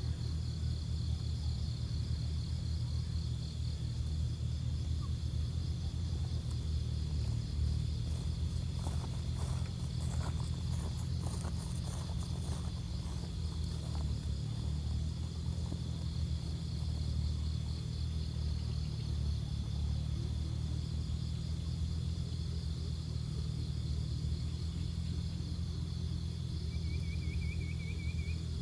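Insects chirring steadily in a high, pulsing drone over a continuous low rumble, with a few light clicks and a short high bird trill near the end.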